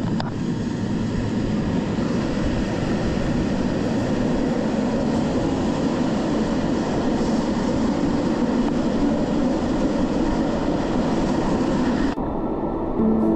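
Metre-gauge Matterhorn Gotthard Bahn train running through the Furka base tunnel: a steady, loud rush of wheels on rails, enclosed by the tunnel walls. The train noise cuts off suddenly about a second before the end, giving way to soft music.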